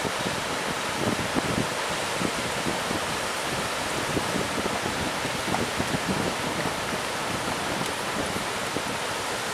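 Steady rush of breaking ocean surf, with wind buffeting the microphone in quick low bumps.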